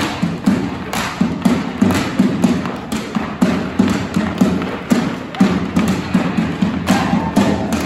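A steady beat of drum strokes, about two a second, from a shoulder-slung drum played alongside Irish dancers stepping on round dance boards.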